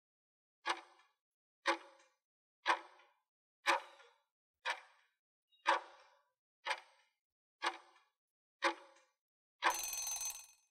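Countdown-timer sound effect: a clock-like tick once a second, nine times, then a rush of noise lasting about a second near the end as the countdown runs out.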